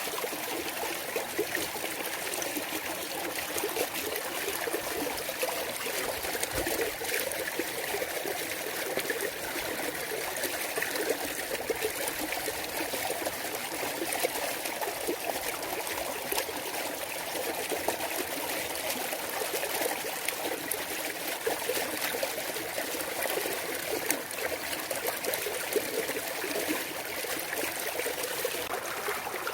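Mountain valley stream: clear water trickling and babbling over rocks in a steady, even flow.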